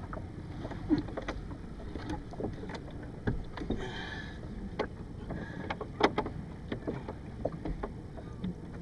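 Muffled, steady low rumble of a boat ride on water, with scattered knocks and splashes throughout.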